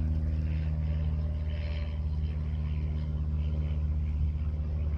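A motor running steadily, giving a low hum that holds one pitch throughout.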